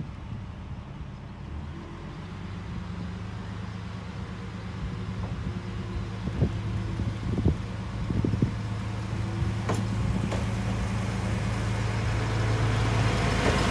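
Tarumi Railway Haimo 295-type diesel railcar pulling slowly into a station, its diesel engine running with a steady low drone that grows louder as it comes close. A few sharp clacks from the wheels on the track sound about halfway through.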